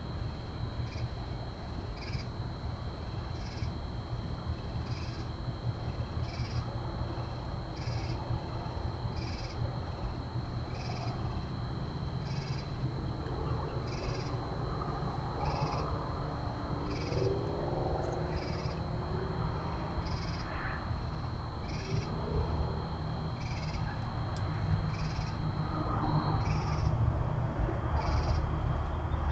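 Outdoor night ambience: a short chirping call repeating about once a second, over a steady high-pitched drone that stops near the end and a low hum.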